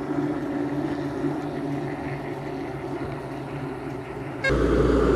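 A motor engine running with a steady low hum. About four and a half seconds in, a much louder low rumble suddenly sets in over it.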